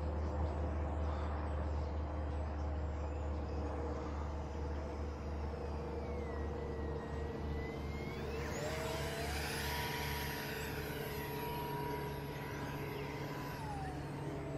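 Cetara RC plane's motor whining as it flies a low pass: the pitch rises about eight seconds in, holds high and steady, then drops near the end, over a steady low hum.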